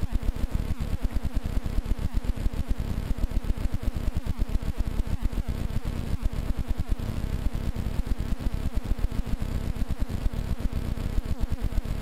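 Powered paraglider trike's engine idling behind the seat, a steady low pulsing running at an even rapid rate while the pilot readies the wing.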